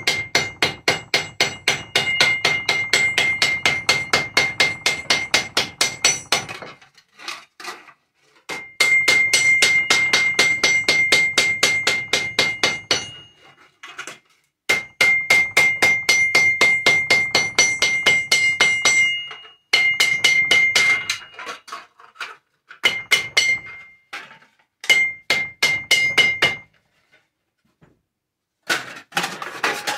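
Hammer blows flattening tin cans, the thin metal ringing under each strike. The blows come fast, several a second, in runs of a few seconds separated by short pauses, and grow sparser near the end.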